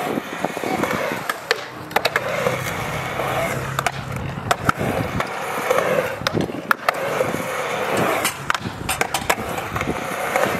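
Skateboard wheels rolling on the concrete of a skatepark bowl as the rider carves across it, a continuous rushing roll broken by frequent sharp clacks.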